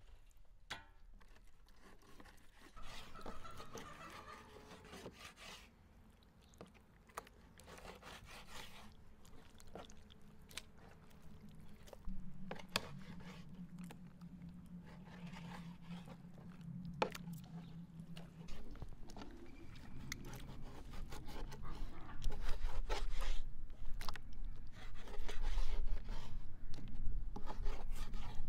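Kitchen knives slicing and scraping raw beef tripe against a wooden cutting board, with wet rubbing and handling of the tripe and scattered sharp knocks. The handling and knocking get louder in the last third.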